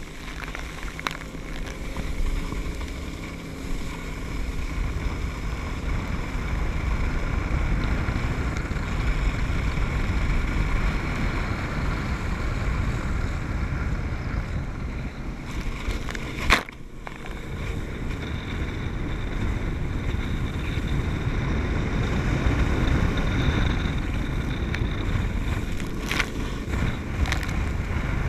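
Wind buffeting the microphone and water rushing past a waterskier being towed at speed, with the tow boat's engine running steadily ahead. One sharp knock comes a little past the halfway point.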